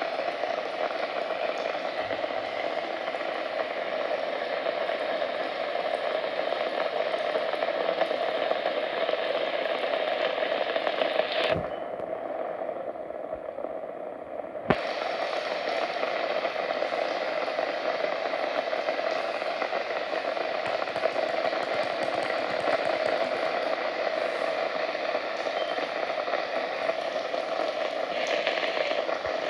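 Steady rain hiss. About a third of the way in it turns muffled and quieter for about three seconds, then comes back in full with a sharp click.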